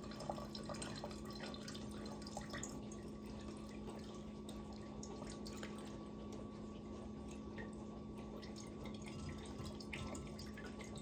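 Faint dripping and trickling of ghost pipe tincture through a fine mesh strainer into a glass measuring cup as the soaked plant material is pressed, with small scattered ticks. A steady low hum runs underneath.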